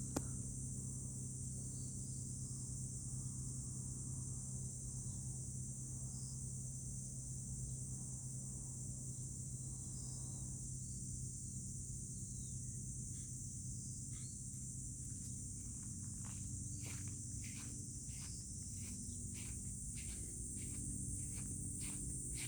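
Steady high-pitched drone of summer insects, over a steady low hum. From about halfway, a quick series of short sharp clicks joins in.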